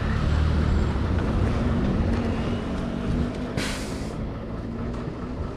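A vehicle engine idling with a low, steady rumble that slowly fades, and a short sharp hiss, like an air brake releasing, about three and a half seconds in.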